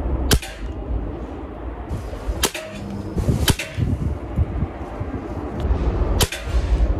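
Remington Warhawk .22 underlever spring air rifle with its built-in sound moderator being fired: sharp cracks, four in all, well spaced apart.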